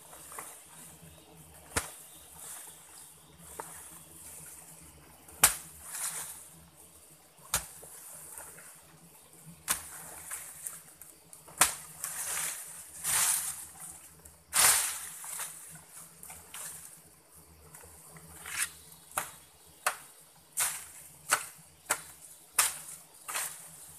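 Wooden stick jabbing and scraping into dry soil and leaf litter, with irregular sharp knocks and scuffs and rustling of leaves, several of them close together near the end.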